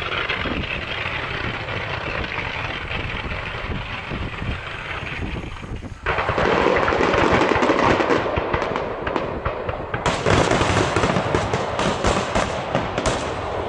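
Fireworks bursting in a dense barrage of rapid crackling and popping. It steps up sharply in loudness about six seconds in and again near ten seconds as more effects go off at once.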